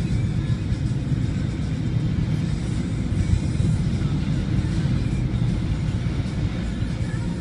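Steady low rumble inside a moving car driving through typhoon winds: road and wind noise against the car body.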